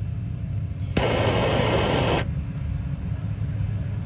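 Small handheld butane torch: a click about a second in, then the flame hisses for about a second before shutting off. A steady low rumble runs underneath.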